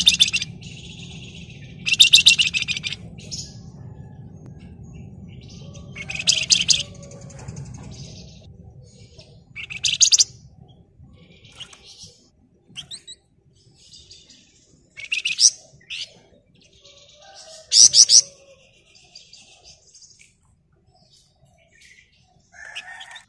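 Flamboyan (Malaysian pied fantail) singing in short bursts of rapid, harsh chattering trills, about six of them a few seconds apart, with fainter chirps in between.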